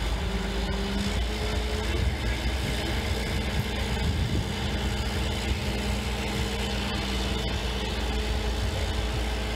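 Crane engine running steadily as it lifts the mast: a continuous low rumble with a steady hum over it.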